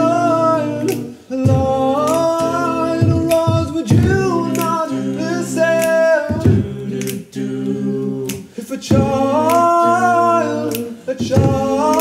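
Male a cappella group singing close harmony without clear words, a held low bass part under upper voices that swell up and fall back in phrases every two to three seconds, with sharp percussive clicks here and there.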